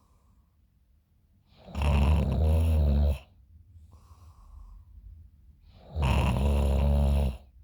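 A person snoring in her sleep: two loud snores, each about a second and a half long and about four seconds apart, with faint breathing between them.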